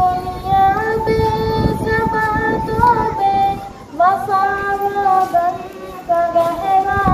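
A young girl singing a naat, an Urdu devotional song, solo into a microphone: long held notes with gliding ornaments, and a short pause for breath about four seconds in.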